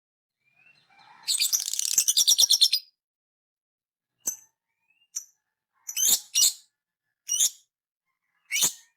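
A parrot calling: a rapid, rhythmic run of high chirps lasting about a second and a half, then about six short high calls spaced out over the following seconds.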